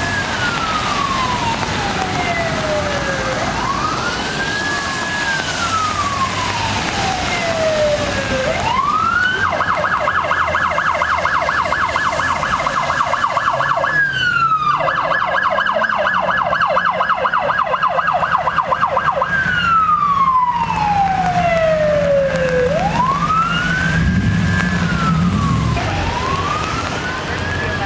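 Electronic emergency siren on a State Parks ranger pickup responding code 3: slow rising-and-falling wail cycles, switched about nine seconds in to a fast yelp with a brief break, then back to the wail near the end. Traffic noise on a wet road lies underneath.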